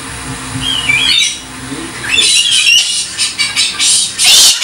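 Galah (rose-breasted cockatoo) calling: a short warbling chirp about a second in, then from about two seconds a rapid run of harsh screeches, loudest near the end.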